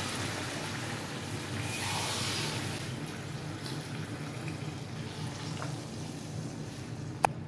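Water poured from a steel tumbler into a kadhai of cooked masala gravy, a steady pouring and splashing. A single sharp click near the end.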